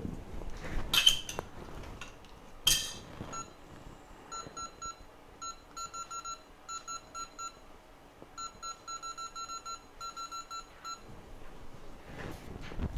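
Two sharp clinks of a hard tool or object, about one and three seconds in, followed by a long series of short electronic beeps, all at the same pitch, coming in quick irregular clusters for several seconds.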